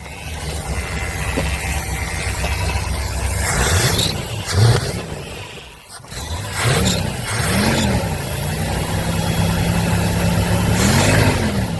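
1965 Ford Thunderbird's 390 V8 running cold, with several short throttle blips and a brief drop about halfway through. Its carburetor is flooding fuel out the top, which the owner puts down to stuck float needles.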